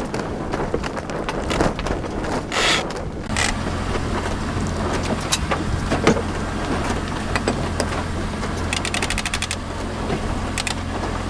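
Mainsail being hoisted on a small sailing catamaran: halyard work with a fast run of ratchet clicks near the end and a few sharp clicks earlier, over wind and a steady low engine hum.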